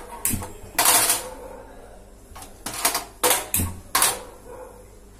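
A run of sharp clicks as a gas stove burner is lit, several coming in quick succession around the middle.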